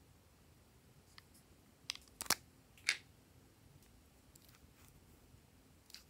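A few sharp clicks and taps of hard plastic lipstick tubes being handled and uncapped. Two loud clicks come about two and a half and three seconds in, with a few fainter ones around them.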